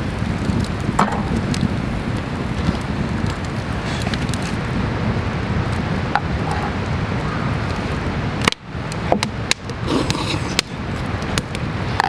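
Wood campfire crackling, with scattered sharp pops over a steady low rumble; the sound briefly drops away about two-thirds of the way through.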